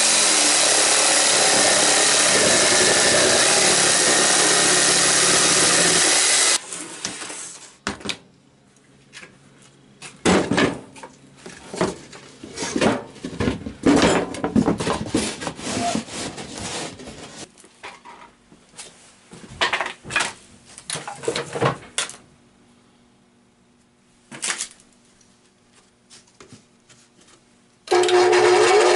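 Corded jigsaw cutting a circle in plywood, a loud steady buzz that stops about six seconds in. Then scattered knocks, scrapes and rubbing as the cut-out and a PVC pipe are handled on the plywood. Near the end a radial arm saw motor starts with a rising whine.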